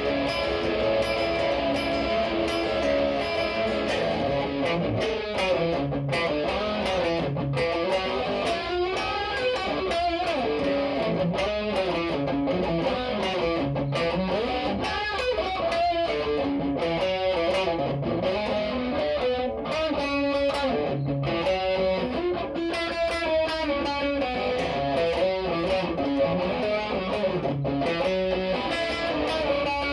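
Electric guitar played through a chorus pedal, a clone of the Electro-Harmonix Small Clone, picking notes and chords with a wavering pitch.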